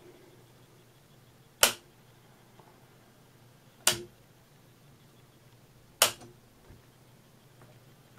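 A classic wall push-button light switch pressed three times, each press a sharp mechanical click, about two seconds apart.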